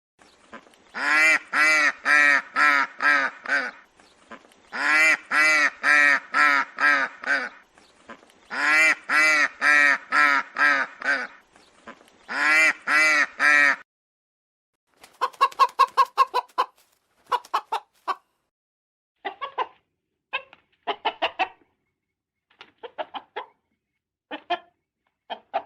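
An animal calling in four loud bouts, each a quick run of five to seven pitched calls. In the second half come shorter, quieter bursts of rapid clicking calls.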